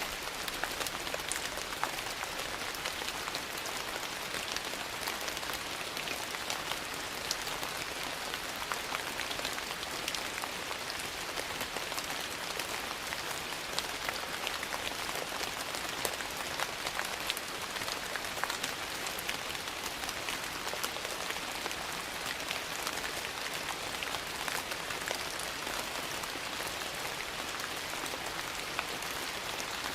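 Steady rain, an even hiss dotted all through with small sharp ticks of drops striking a surface.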